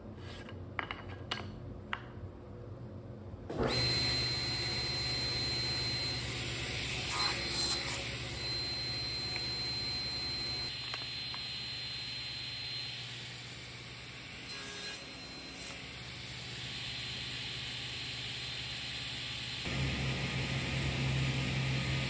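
A few light clicks, then about three and a half seconds in a woodworking power tool starts and runs steadily with a low motor hum. Its sound shifts about ten seconds later and again near the end.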